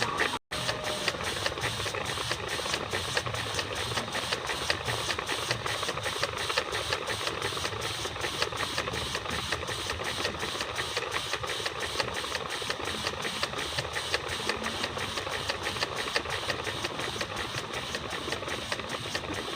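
Small homemade steam engine running: a fast, even clatter of regular beats from its piston stroke.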